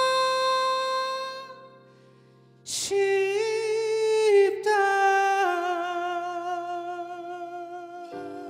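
Male vocalist singing a Korean pop ballad live into a handheld microphone over an accompaniment. A held note fades into a short pause. A long note with vibrato follows, steps down to a lower note and slowly fades, and new accompaniment chords come in near the end.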